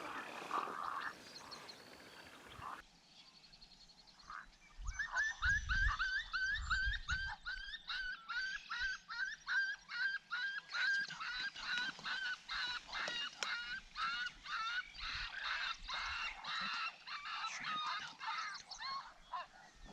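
A flock of geese honking: short calls repeating two or three times a second, starting about five seconds in and growing denser as more birds join.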